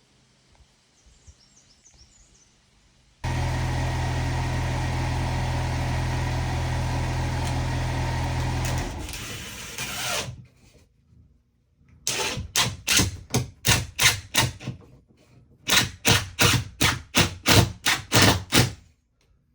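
A power tool's motor runs steadily for about six seconds, then cuts off and winds down. It is followed by two runs of rhythmic strokes at about two a second, with a short pause between them.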